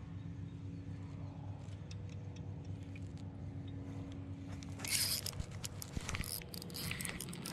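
Electric trolling motor humming steadily. About five seconds in, and again near the end, sharp clicks and rustling from handling close to the microphone are heard over it.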